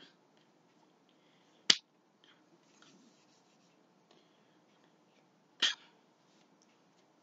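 Two sharp slaps of hands during sign language, the first about a second and a half in and the second about four seconds later, over faint room hiss.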